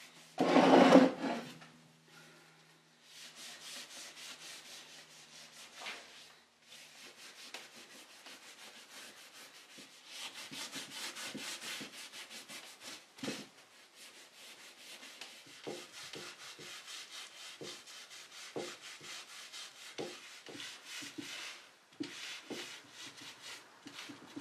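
A damp cloth rag scrubbed back and forth over a painted wooden chair's spindles and back rail, in quick repeated rubbing strokes with occasional light knocks against the wood. A brief loud clunk comes about a second in.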